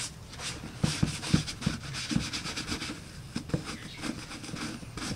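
A soapy sponge scrubbing over a greased black leather mountain boot, in a series of short, irregular rubbing strokes, several a second.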